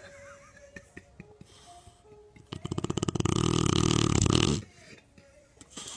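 A sleeping dog snoring. Quiet, crackly breathing gives way about halfway through to one loud, rattling snore lasting about two seconds, then it falls back to quiet breathing.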